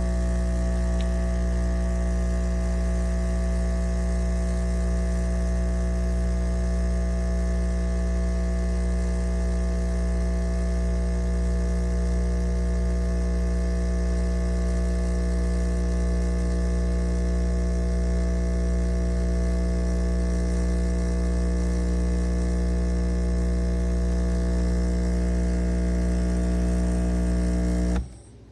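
De'Longhi Stilosa espresso machine's vibratory pump running, pushing water through the machine. It makes a steady, loud electric hum that cuts off abruptly near the end.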